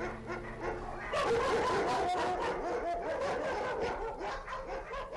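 Many dogs barking and yelping at once in a dense, overlapping chorus that gets louder about a second in.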